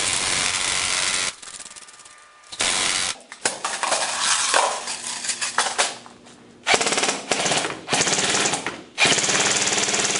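Airsoft electric gun (Lancer Tactical M4 AEG) overvolted on an 11.1 V LiPo, firing full-auto bursts with the gearbox cycling at a very high rate. Several bursts with short breaks between them, the last one continuous from about nine seconds in.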